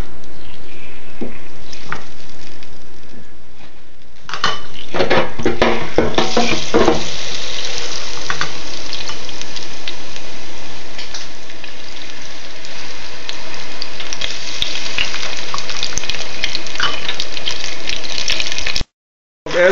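Tempura-battered bitter melon deep-frying in hot oil in an electric deep fryer, with loud sizzling and dense crackling that builds up a few seconds in as the battered pieces hit the oil.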